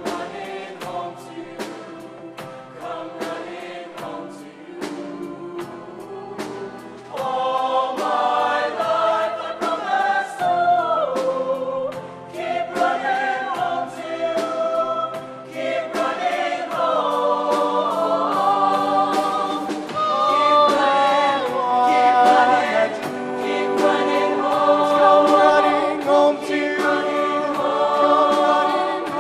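Show choir singing with a live band over a steady drum beat; the choir is softer at first and comes in full and loud about seven seconds in.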